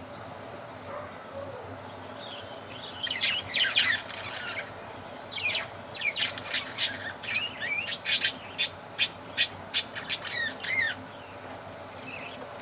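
Budgerigars chirping: a brief burst of warbling chatter a few seconds in, then a run of short, sharp chirps, about two a second, that stops near the end.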